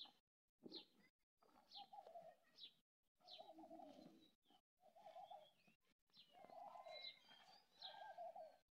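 Birds calling: short high chirps that fall in pitch, and repeated low cooing calls about a second long each.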